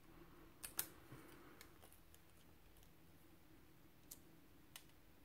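Near silence with a few faint light clicks, twice near the start and twice near the end, from a small paper die-cut and a fine pick tool being handled on a cutting mat.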